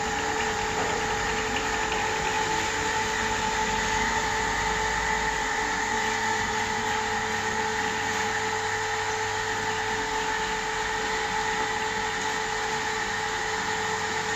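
Tata Ace mini truck's engine running as it pulls away, its low rumble fading after about five seconds. A steady high drone of a few even tones holds throughout.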